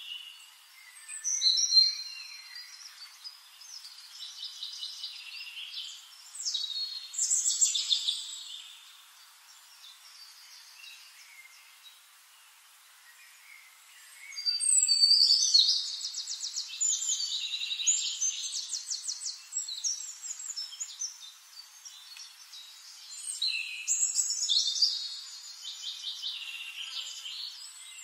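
Songbirds chirping and trilling in repeated bursts, with a quieter lull about a third of the way through.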